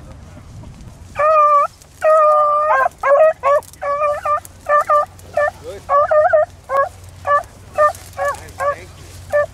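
Beagle hounds baying on a rabbit's scent. Two long drawn-out bawls come first, then a steady run of short chop barks, about two a second.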